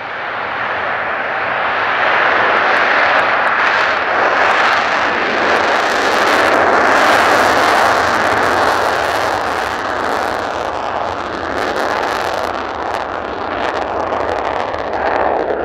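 Mitsubishi F-2 fighter's single General Electric F110 turbofan engine at full afterburner on the takeoff roll. It is a loud, steady jet noise shot through with crackle, swelling over the first couple of seconds.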